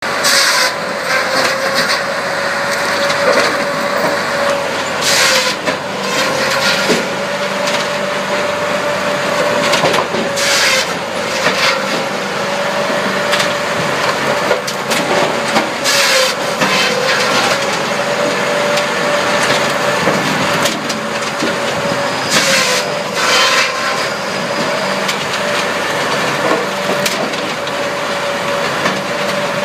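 A firewood processor with a circular saw blade and hydraulic splitter is running. Its motor and hydraulics drone steadily with a slightly wavering tone. Every few seconds the drone is broken by short, loud, harsh bursts as logs are cut and split.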